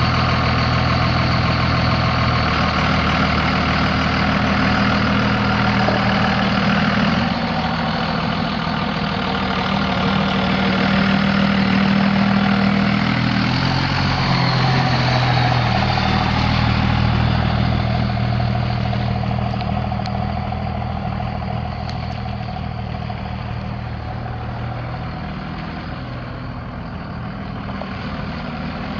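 Dodge Ram 3500's 5.9-litre inline-six turbo diesel engine running steadily, its note shifting slightly about seven and fourteen seconds in, then growing somewhat quieter.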